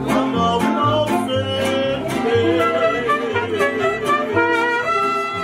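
Mariachi band striking up a song: violins carry the melody over strummed guitars and a bass line.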